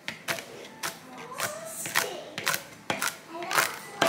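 Chef's knife chopping nuts on a cutting board: a crisp crunch with each stroke, about two or three strokes a second, a dozen or so in all.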